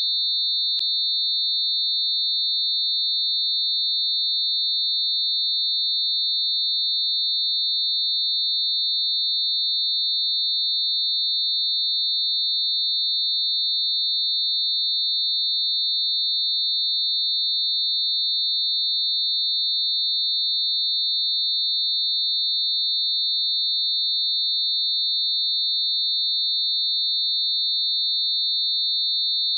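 Synthesized mix of a few closely spaced pure tones around 4 kHz, held steady as one continuous high-pitched tone.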